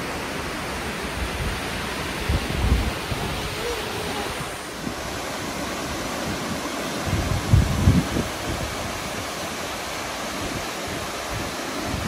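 Steady rushing of a waterfall and the stream below it, with wind buffeting the microphone about two and a half seconds in and again around seven and a half seconds.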